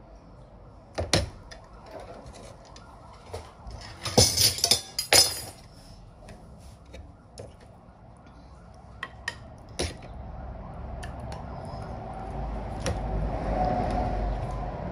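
Crockery bowls and metal spoons clinking and clattering as bean stew is dished out. There are scattered knocks and one dense, loud flurry of clatter around four to five seconds in.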